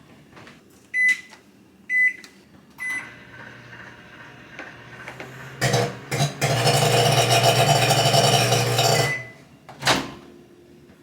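Microwave oven: three keypad beeps, then it starts running with a faint hum, and about five seconds in a loud harsh buzz sets in for about three seconds before it cuts off with a short beep and a click. The buzz is the sign of a failing microwave, bad enough that the owner decides it needs replacing.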